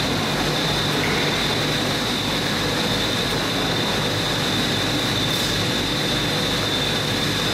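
Steady factory machinery noise: a constant high-pitched whine over a low hum and a wash of mechanical noise, unchanging throughout.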